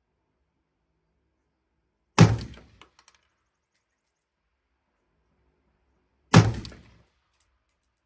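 Two shots from a 5.56 NATO AR-15 rifle with a 16-inch barrel (Smith & Wesson M&P15 Sport II), about four seconds apart, each dying away within about half a second, with a small tick near the end.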